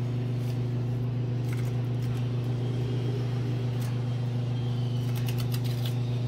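A steady low machine hum, a motor running continuously without change, with a few faint clicks and scrapes of a knife cutting under the backbone of a large king mackerel on a cutting board.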